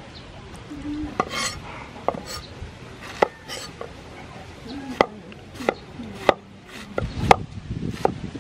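Steel cleaver cutting a banana flower on a wooden cutting board: separate sharp knocks of the blade hitting the board about a second apart, then a quicker run of chopping strokes with heavier thuds near the end as the flower is sliced into shreds.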